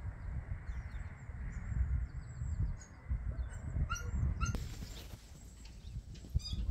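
A low rumble with small wild birds chirping, and a few short high calls about four seconds in.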